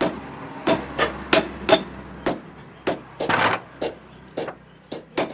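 A blacksmith's hammer forging an iron-and-steel cane-cutting blade on the anvil: about a dozen sharp metal-on-metal blows at an uneven pace, some ringing briefly.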